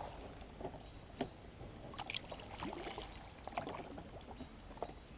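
Kayak paddle dipping in calm river water, with faint drips and trickles and a few small knocks scattered through.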